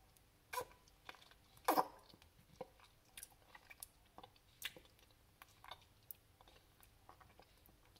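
Close mouth sounds of someone eating crunchy peanut butter off a metal spoon: scattered short wet clicks, smacks and chewing. The loudest are about half a second and nearly two seconds in.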